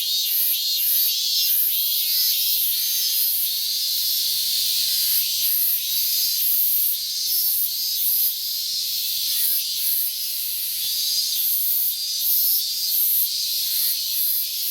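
Robust cicadas (minmin-zemi) singing loudly: a continuous high, shrill call that pulses in quick repeated phrases.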